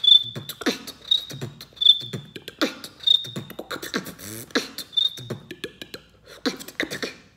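A person beatboxing a beat that weaves short, high whistle notes, about five of them, between mouth-made kick, snare and click sounds.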